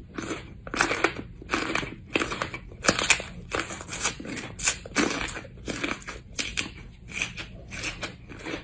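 Close-up crunching as a person bites into and chews a fresh jalapeño pepper, with sharp, irregular crunches about two or three a second.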